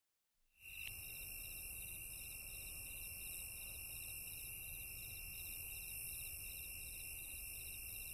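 Faint steady chorus of crickets, a high, fast-pulsing chirring that starts under a second in.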